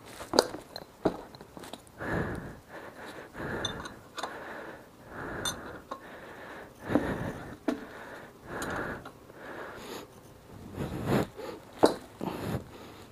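Wrench clicking and clinking on the rear sprocket's nuts as they are worked loose, with a few sharp metallic clicks, over heavy breathing from the effort every second or two.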